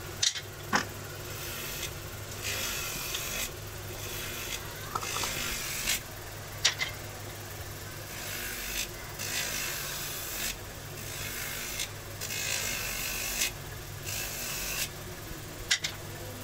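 Rasping strokes, like a file or sandpaper worked back and forth, repeating about every one to one and a half seconds over a low steady hum, with three sharp clicks.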